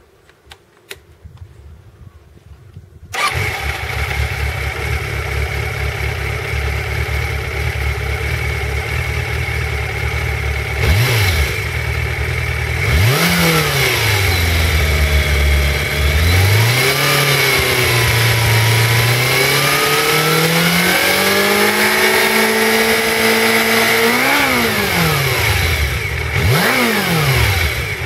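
Suzuki GSX400 Impulse inline-four on its stock muffler. It is started after a few seconds of irregular sounds, catching suddenly about three seconds in, then idles. The throttle is blipped several times, revs are raised and held for a few seconds, and there are quick sharp revs near the end. Mechanical engine noise is heard along with the exhaust.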